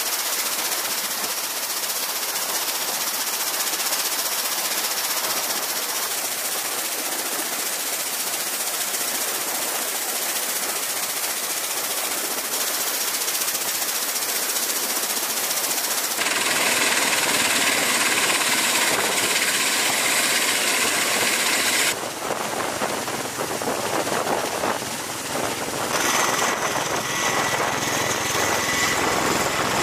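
CMV-22B Osprey's twin turboshaft engines and proprotors running, a loud steady turbine hiss and rotor noise. It changes abruptly about 16 and 22 seconds in, and a steady high whine joins in the last few seconds.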